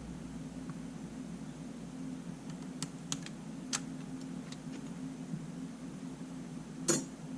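A few small, sharp clicks and taps from handling camera parts and tools during disassembly. The loudest click comes near the end, and a steady low hum runs underneath.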